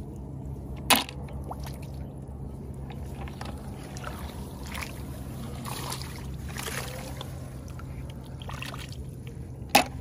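Snails dropped into a plastic bucket, two sharp clicks, one about a second in and one near the end, with faint rustling of wet rice straw and small splashes of paddy water between them, over a steady low hum.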